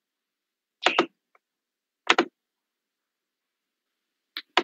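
Mouse clicks: single sharp clicks about a second in and about two seconds in, then a quick double click near the end.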